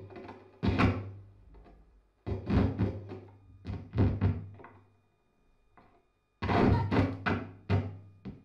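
Free-improvised live music played as percussive sounds: bursts of sharp knocks and thuds, the last and longest starting about six seconds in, with a near-silent gap before it and a low steady hum underneath.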